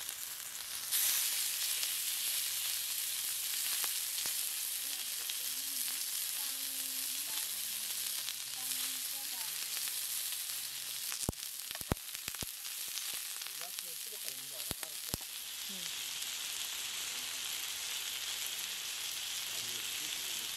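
Beef steak searing in a hot skillet beside asparagus and mushrooms, with a steady loud sizzle that grows louder about a second in as the steak goes down flat on the pan. A few sharp clicks of metal tongs against the pan come around the middle.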